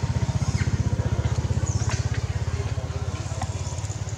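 A small engine running steadily at idle, a fast low even pulsing, with a few brief high chirps over it.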